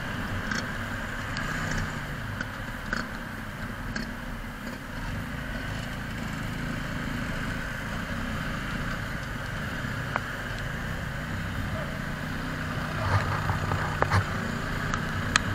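Motorcycle engine running steadily with road and traffic noise, picked up by a helmet camera on the moving bike. A few short knocks near the end.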